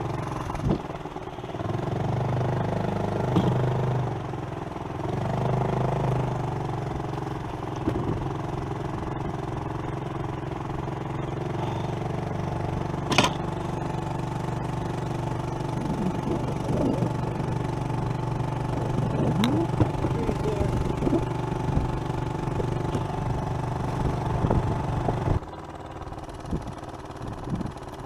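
Small 2.3 hp outboard motor running at low speed, pushing the boat slowly through shallow water. It picks up twice in the first few seconds, then holds a steady drone until it drops off sharply near the end.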